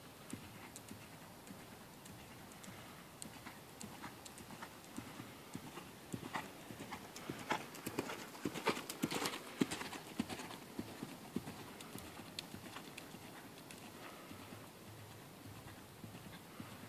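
Ridden horse trotting on sand arena footing: steady, muffled hoofbeats, loudest around the middle as the horse passes close by.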